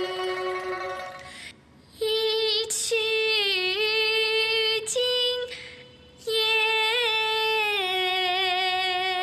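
A girl singing a slow Chinese ballad in long held notes with vibrato, in three phrases broken by two short pauses for breath.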